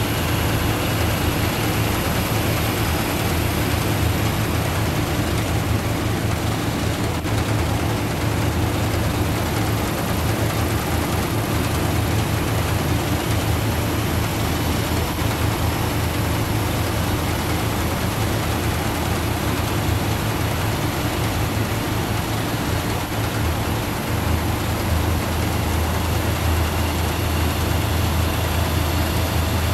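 Tomato harvester and its conveyors running at work: a steady, loud low engine rumble with a mechanical hiss above it, shifting slightly in tone near the end.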